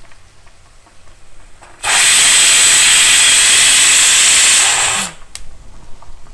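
Pigeon aluminium pressure cooker venting steam in a loud, even hiss for about three seconds, released by hand to let out the pressure at the end of cooking; the hiss cuts off sharply, followed by a single click.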